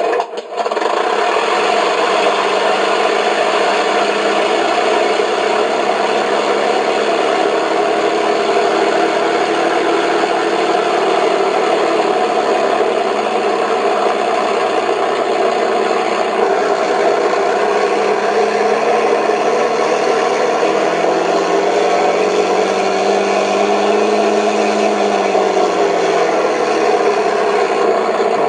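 Simulated P-51 warbird engine sound from an RC sound card, played through two TT-25 tactile transducers mounted in the model's foam airframe, running steadily at idle. About two-thirds of the way through the throttle is opened and the engine note rises in pitch, then falls back to idle.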